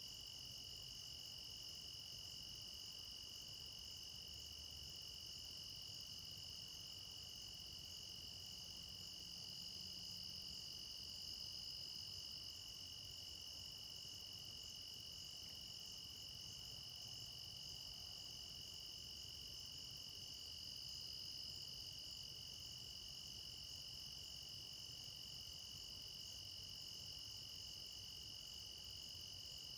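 Steady evening chorus of crickets, a continuous high-pitched trill that swells slightly about ten seconds in and again near twenty-one seconds.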